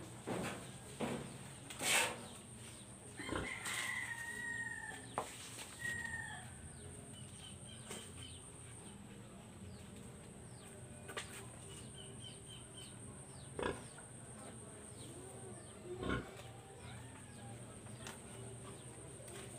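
A rooster crowing a few seconds in, with short bird chirps and a steady high whine behind it. Scattered sharp knocks and rustles come from a bamboo harvesting pole working among banana leaves, the loudest about two seconds in.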